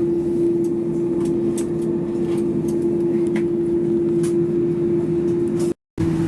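Steady aircraft cabin noise of a Boeing 787: a constant hum with one clear steady tone over a low rushing noise, with a few faint clicks. The sound drops out for a moment near the end.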